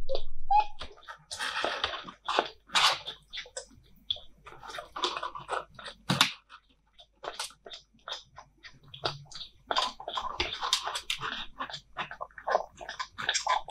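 Very young kitten suckling hungrily from a milk feeding bottle: irregular wet sucking, smacking and clicking sounds in uneven bursts.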